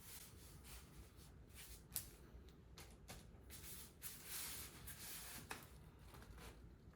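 Faint rustling and light taps of packaging being handled while a PC case is unboxed, with a sharper tick about two seconds in and another about five and a half seconds in.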